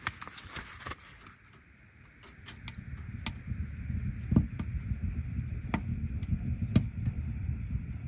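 Pages of a paperback book turned, then a KingCamp wood stove burning hard: a low, uneven rumble with occasional sharp pops.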